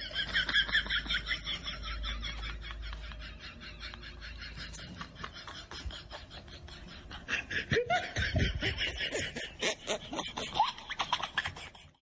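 Laughter: a long string of quick, repeated 'ha' sounds. It is strongest at the start, fades in the middle, and picks up again for the last few seconds.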